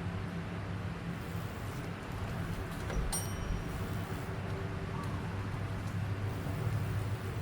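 Steady low hum of an engine or motor running, with a single short metallic ding about three seconds in.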